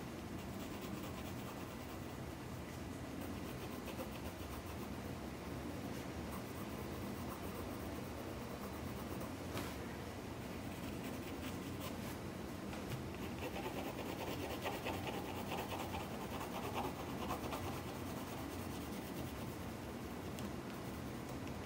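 Pencil scratching on paper in light shading strokes, denser and louder for a few seconds past the middle, over a low steady hum.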